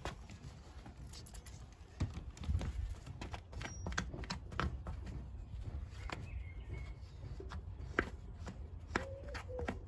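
Scattered light clicks, taps and rubbing as a vinyl sticker is pressed and smoothed onto a car's side window with a cloth. A low rumble of wind on the microphone sits under it, and a steady call starts about nine seconds in.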